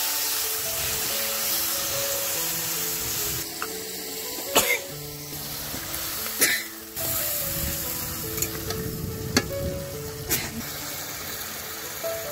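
Curry masala sizzling in hot oil in a steel kadhai while a long metal spatula stirs it, with a few sharp clanks of the spatula against the pan. After water is poured in about halfway, the frying noise thickens into bubbling. Soft background music with a simple melody plays throughout.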